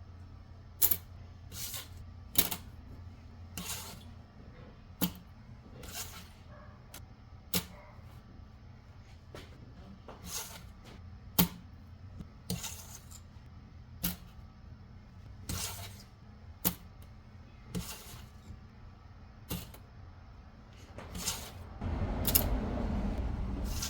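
A run of sharp, separate clicks and taps, roughly one every second, over a low steady hum; near the end a louder, rustling noise comes in.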